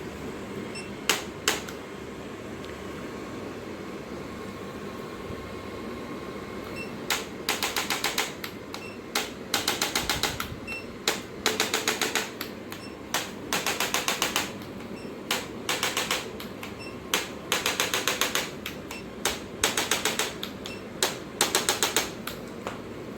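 Repeated short bursts of rapid mechanical clicking, each a quick run of many clicks lasting under a second, coming about every two seconds from about seven seconds in. Two single clicks sound shortly after the start.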